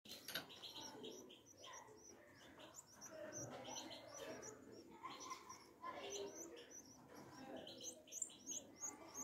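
Canary nestlings begging for food: faint, high, rapid chirps repeated in quick clusters.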